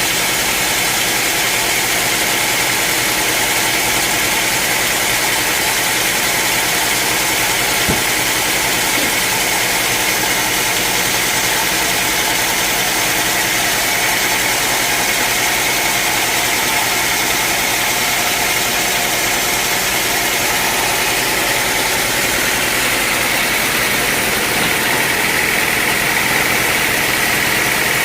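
Sawmill machinery running steadily, a constant engine-like drone that holds unchanged throughout.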